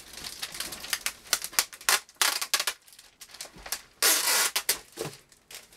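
Plastic bag wrapping crinkling and rustling as parts are lifted out of a cardboard box: a quick run of sharp crackles, with a longer rustle about four seconds in.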